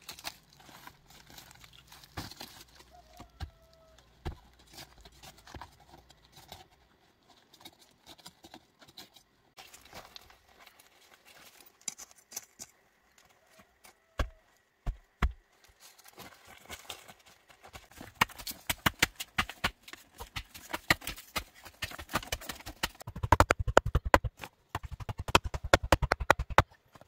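Hand tools working packed earth and stones: scattered knocks and scrapes, then, from about two-thirds of the way through, a long fast run of hard chopping strokes into the ground.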